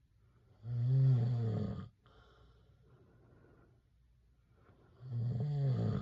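A man snoring in his sleep: two loud snores about four seconds apart, each lasting just over a second, with faint breathing between them.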